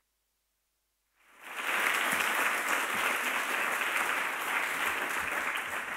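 Audience applauding a speaker onto the stage: steady clapping from a large seated crowd that fades in after about a second of dead silence and starts to die away near the end.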